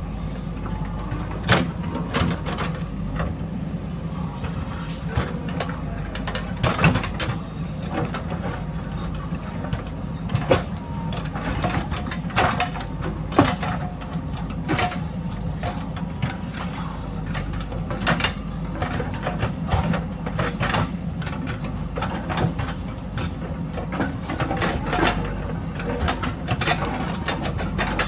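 Earthmoving machine's diesel engine running steadily under load, with frequent irregular sharp knocks and clatters from the digging work over it.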